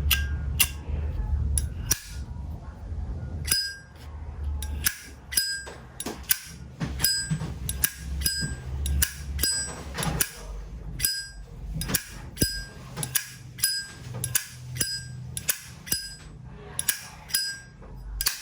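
A 1966 Zippo lighter's lid being flicked open and snapped shut over and over, each stroke a sharp metallic clink with a bright ring, about two a second. The lighter's sound is called extremely satisfying.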